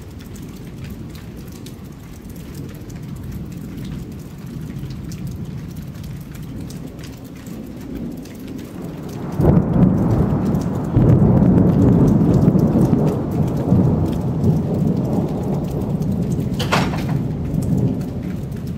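Steady rain falling, then a loud peal of thunder that breaks in with a sharp crack about halfway through and rolls on for several seconds, slowly fading.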